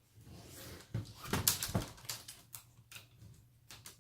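Plastic screen bezel of an HP notebook laptop being fitted back onto the display: a soft scraping rustle, then a run of clicks and taps as the plastic is set in place, loudest a second or two in.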